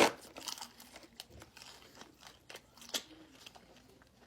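Close-up crunching and cracking of a cooked giant isopod's shell as it is broken open to get at the meat: one sharp loud snap at the start, then scattered smaller cracks and crackles.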